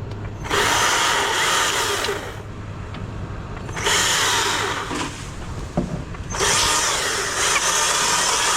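Chainsaw cutting into hardwood in three bursts, each a second or two long, dropping back between cuts.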